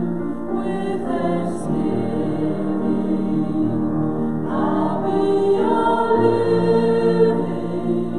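Slow church hymn music: long held notes with voices singing.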